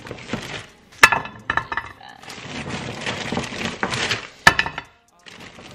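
Kitchen dishes and utensils clinking and scraping while food is portioned into containers. There are sharp clinks about a second in, half a second later and again near the end, with a stretch of scraping in between.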